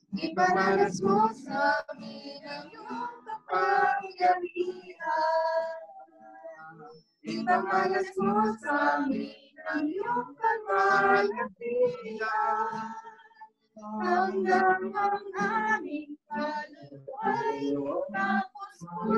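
A worship song sung with acoustic guitar accompaniment, in phrases broken by a few short gaps where the sound drops out.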